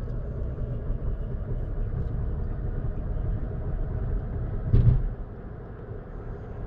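Low, steady road and engine rumble heard from inside a moving car's cabin. A single thump a little under five seconds in is the loudest sound, and the rumble is somewhat quieter after it.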